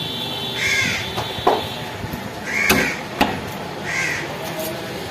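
Crows cawing three times, about a second or two apart, with sharp chops of a cleaver into a wooden chopping block in between. The chops are the loudest sounds.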